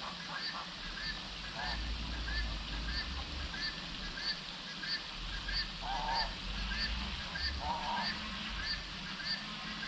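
Wild animal calls in natural ambience: a short high call repeating steadily about twice a second, with a few louder, lower calls about six and eight seconds in.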